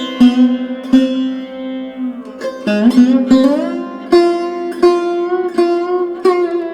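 Background music: a sitar-like plucked string instrument playing notes that bend in pitch over a steady drone.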